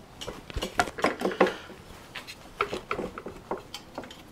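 Metal clinking and knocking as the aluminium lower unit of a Suzuki DT 9.9 two-stroke outboard is pushed up against the midsection and worked into place, its driveshaft and water tube being lined up. The sound is a series of irregular sharp clicks and taps.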